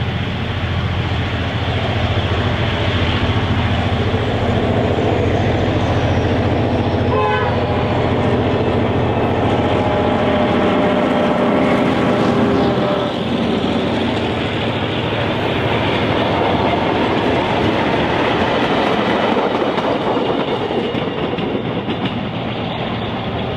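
Y-class diesel locomotive with an EMD 567C engine running as it hauls a mixed train past: a steady low engine drone grows as it approaches and drops in pitch as the locomotive passes about thirteen seconds in. The carriages and wagons then roll by with a steady clatter of wheels on the rails.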